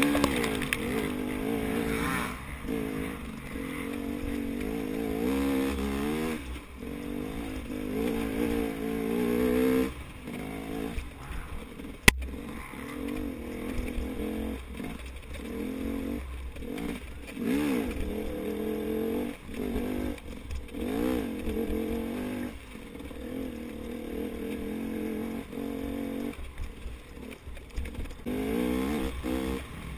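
KTM 250 XC two-stroke dirt bike engine heard from the rider's helmet, revving up and falling back again and again as the throttle is opened and shut. A single sharp knock about twelve seconds in.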